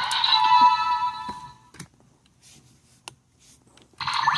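Electronic toy sound effect from a small speaker, sounding for about a second and a half as the Ressha Green train toy is tried. A few faint plastic clicks follow, and another electronic sound starts near the end.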